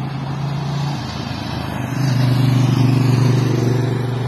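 Steady drone of motor-vehicle engines from the race's escort and team vehicles, growing louder about two seconds in.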